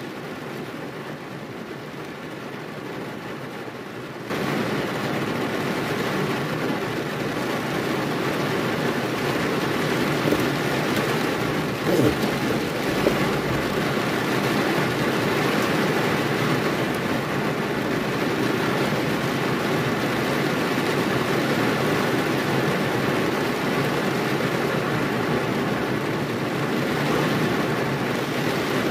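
Heavy rain falling on a car's roof and windshield: a steady hiss that turns abruptly louder about four seconds in, with one short knock about twelve seconds in.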